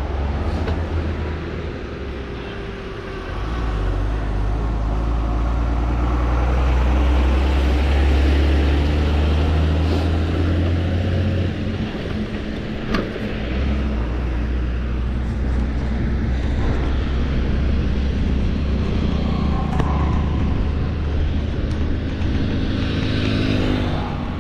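Wind buffeting the microphone with road and tyre noise as an e-bike pulls away and rides along a road, the rumble growing stronger as it picks up speed a few seconds in. A motor vehicle's engine comes up near the end.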